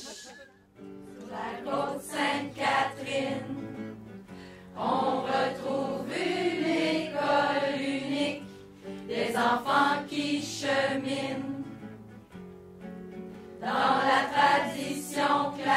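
A group of amateur voices singing a team song together in phrases, over steady held instrumental backing notes.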